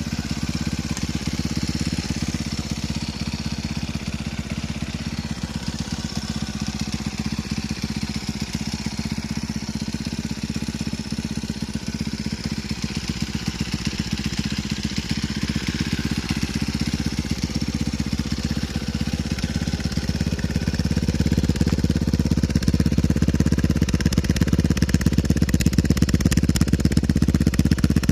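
Yamaha Mate moped engine running steadily through an exhaust fitted with a homemade silencer baffle, a rapid even exhaust beat. It gets louder about three quarters of the way through.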